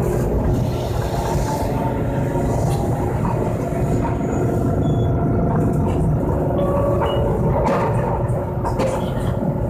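Toyohashi Railroad Mo780 tram running along its street track, heard from inside the car: a steady running rumble of the car body and wheels on the rails.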